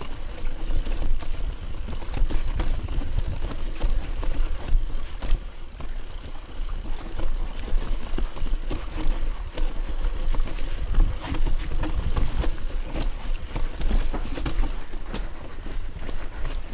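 Mountain bike rattling and clacking as it rides down a rocky trail, with many sharp knocks from the wheels and frame hitting stones. A steady low rumble of wind buffets the handlebar-mounted microphone underneath.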